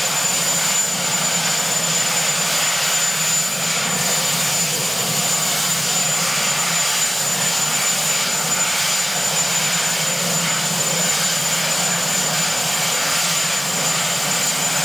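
Marine One, a Sikorsky VH-3D Sea King helicopter, running on the ground before lift-off: a steady engine and rotor noise with a constant high turbine whine over it.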